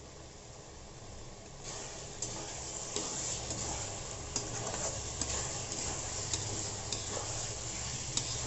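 Potatoes and chickpeas sizzling in spiced masala in a kadhai while a metal spatula stirs and turns them, with sharp clicks and scrapes of the spatula against the pan. The sizzle grows louder about two seconds in as the stirring starts.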